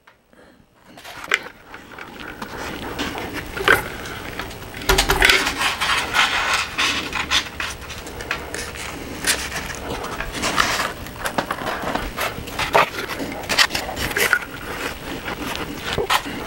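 Foam retaining-wall panels being handled and pressed into place against a styrofoam base: continuous rubbing and scraping with scattered sharp clicks, starting about a second in.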